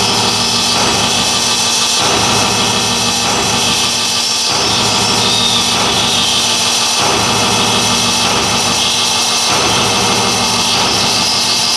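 Live electronic music from laptops and mixing gear: a loud, dense, noisy drone-like texture that shifts to a new pattern about every two and a half seconds.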